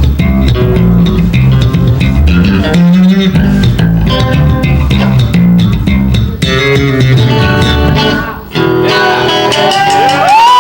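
Live bass guitar and electric guitar played loud through amplifiers, the bass holding low notes under guitar lines. A short dip a little past 8 s, then the guitar plays swooping up-and-down pitch bends near the end.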